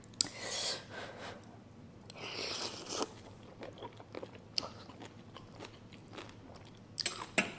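Close-up eating sounds of spicy instant noodles: two slurps in the first three seconds, then wet chewing and mouth clicks, with a few sharp clicks near the end.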